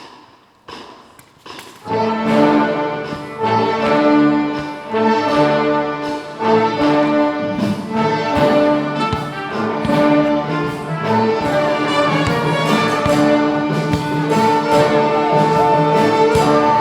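Orchestra of brass and strings playing together: a few soft taps, then the full ensemble comes in about two seconds in with loud held chords and accented beats.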